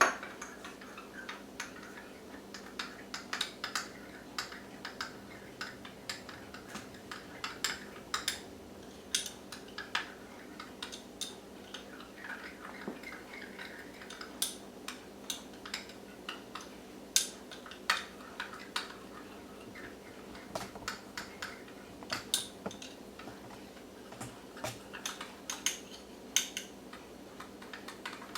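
A spoon clinking against the sides of a small cup while stirring dry yeast into warm water: irregular light clicks, a few a second, throughout.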